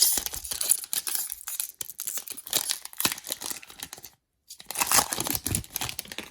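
A football trading card pack's plastic wrapper being torn open and crinkled by hand, in two bouts with a short pause about four seconds in.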